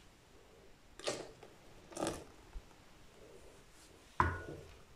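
Milk poured from a small bowl into egg-and-oil cake batter, two soft splashes about one and two seconds in. A little after four seconds the bowl is set down on the counter with a short knock that rings briefly.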